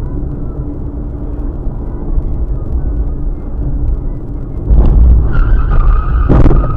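Dashcam audio of a car on the road, a steady low rumble of engine and tyre noise. About five seconds in the rumble grows louder and a high, steady squeal sets in. Under a second later comes a sharp, loud impact.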